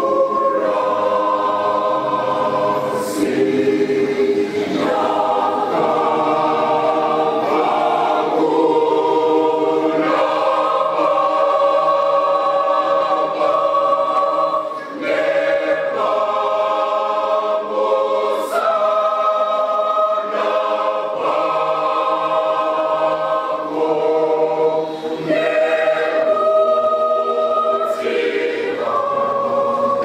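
Mixed choir of men and women singing a Shona church song in full chordal harmony, with short breaks between phrases.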